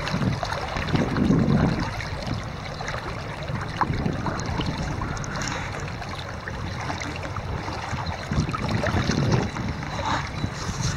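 Shallow river water running over a gravel bed, with low gusts of wind buffeting the microphone about a second in and again near the end.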